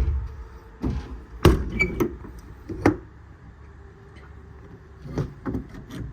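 A series of metal clunks and knocks from the compartment doors and latches of a steel truck service body, loudest about one and a half seconds in, with softer knocks near the end.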